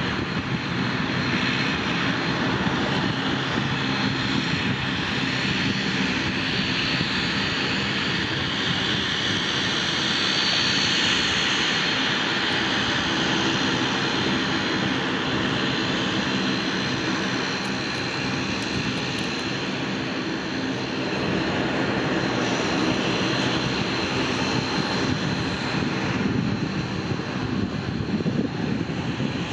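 Airliner engines running steadily at an airport, a continuous dense rumble and whine with only a slight dip in level about two-thirds of the way through.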